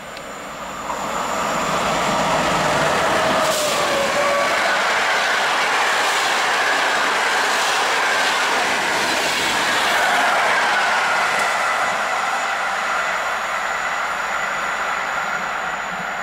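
Passenger train hauled by an EP09 electric locomotive passing at speed. The rush of wheels on rail swells over the first two seconds, the locomotive's whine drops in pitch as it goes by about three and a half seconds in, then the coaches roll past in a long, loud, steady rumble with a faint ringing tone sliding down.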